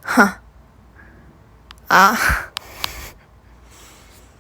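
A woman's voice in two short wordless bursts, a brief falling sound at the start and a longer one about two seconds in, with a few light clicks in between.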